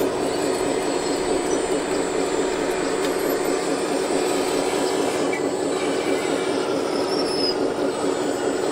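Radio-controlled hydraulic excavator model running, its motor and hydraulic pump giving a steady mechanical whir with a faint high whine.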